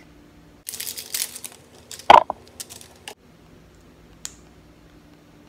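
Plastic lip gloss tube handled close to the microphone and opened: a run of scratchy, crackly clicks with one sharp, loud click about two seconds in, then a single light tick a little after four seconds. A faint steady hum lies under it.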